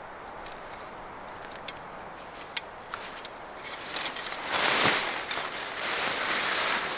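A couple of sharp clicks from a metal tent pole being fitted, then heavy canvas tent fabric rustling and flapping loudly for the last few seconds as the pole lifts it.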